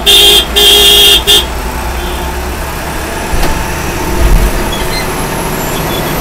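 A vehicle horn gives two loud honks in quick succession in the first second or so. After that comes the steady engine and road noise of a moving MSRTC bus.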